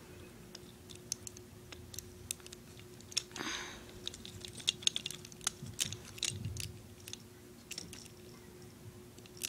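Plastic parts of a G1 Transformer toy clicking and ticking as its joints are bent and folded by hand during transformation: a scatter of small, irregular clicks, with a brief soft rustle about three and a half seconds in.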